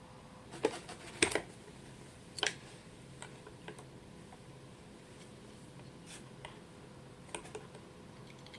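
A few scattered sharp clicks and taps, the loudest pair about a second in and another around two and a half seconds, over a faint steady hum.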